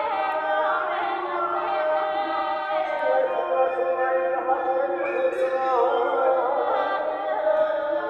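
Several recorded singing voices, each carrying its own melodic line, play at once from the small speakers of an interactive sound sculpture as hands trigger its sensors. The overlapping notes hold, glide and change pitch.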